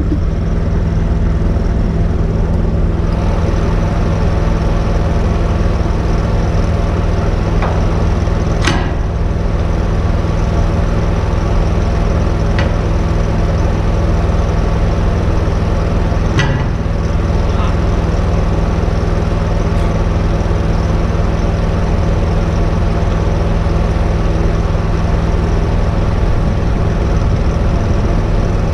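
Engine of an engine-driven welder on a service truck running at a steady speed, with a few sharp clicks from work on a steel excavator arm.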